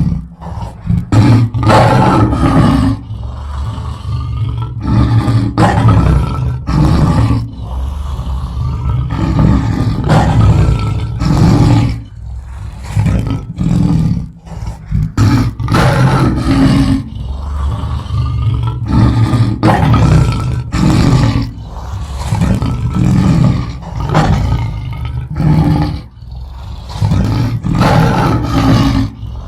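Lion roaring: a long run of loud, deep roars, one after another every second or two. The recording is processed in 8D to move around the listener's head.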